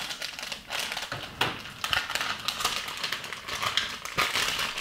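Crinkly plastic blind-bag packaging being snipped open with scissors and handled, a dense run of irregular crackles and snips.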